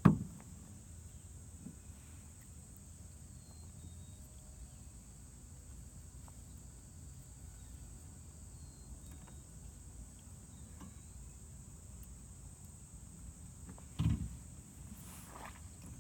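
Quiet outdoor ambience: a steady high insect drone over a low rumble, with a few faint clicks and a single thump about fourteen seconds in.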